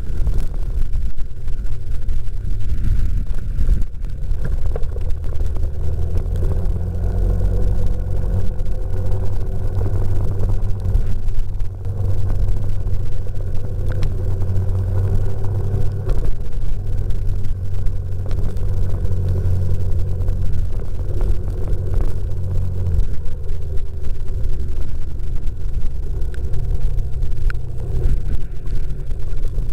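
Typhoon winds gusting hard against the microphone: a continuous heavy low rumble that swells for long stretches, with a faint wavering howl above it.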